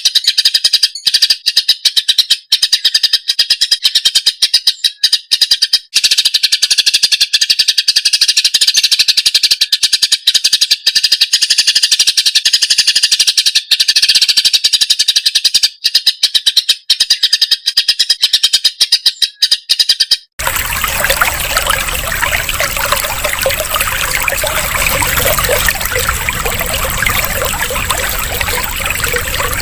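Cucak ijo (green leafbird) singing a fast, unbroken run of chattering chirps. About two-thirds of the way through, the song cuts off suddenly and is replaced by the steady sound of trickling water.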